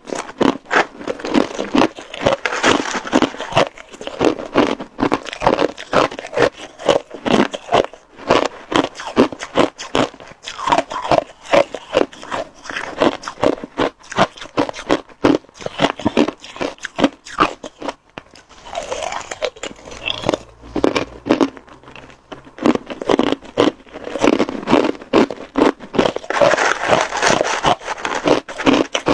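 Hard ice being bitten and chewed up close, a dense run of loud cracking crunches, with a metal spoon scraping and scooping through crushed ice in a plastic tub at times.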